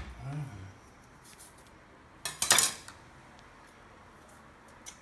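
Kitchen utensils clattering: a quick cluster of sharp metallic knocks about two and a half seconds in, with a single knock near the end.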